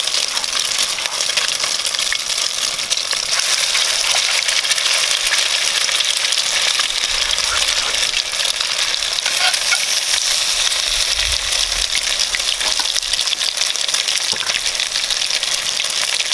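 Fish patties frying in hot oil in a cast-iron Dutch oven: a steady fizzy sizzle with fine crackling throughout.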